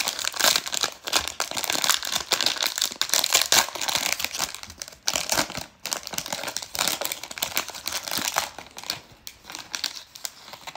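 Trading-card pack wrapper being torn open and crinkled by hand: a dense, crackly rustling that thins to scattered crackles near the end as the cards are drawn out.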